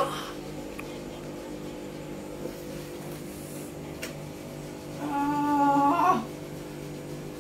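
Electric tattoo machine buzzing steadily while the needle works on the skin. About five seconds in, the woman being tattooed lets out a drawn-out, high-pitched whimper of pain lasting about a second, rising at the end.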